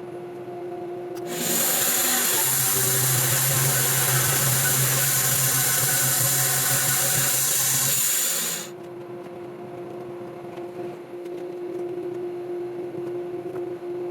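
Sawmill running steadily with a constant hum. From about a second in, its blade cuts through the white oak log with a loud hissing rush for about seven seconds, then stops abruptly.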